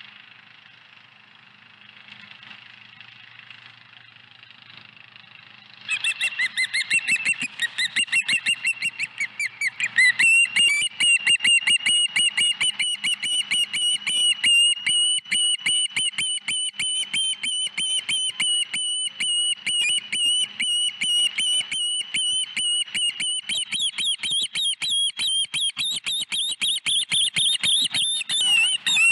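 Juvenile osprey food-begging: a fast, unbroken run of high whistled chirps, several a second, starts about six seconds in and grows louder at about ten seconds, as an adult osprey flies in with a fish.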